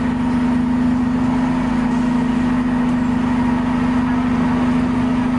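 City transit bus idling at the curb: a steady engine hum with one strong held tone that does not change.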